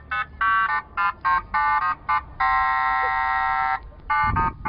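Novelty car alarm siren on a VAZ-2101 playing a quick run of short electronic beeps that jump between pitches, broken in the middle by one long held tone of about a second and a half, then more short beeps.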